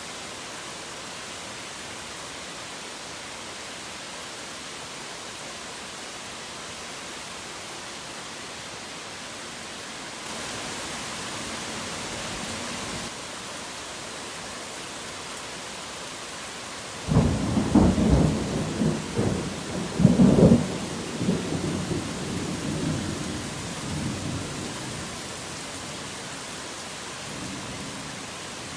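Steady heavy rain with a thunderclap a little past halfway: a sudden low crackling rumble, loudest in its first few seconds, that rolls away over several seconds.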